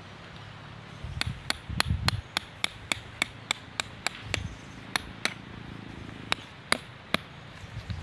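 Small hammer driving a tent stake into the ground to peg down a tarp corner: about a dozen quick ringing strikes, roughly three a second, then a short pause and three more.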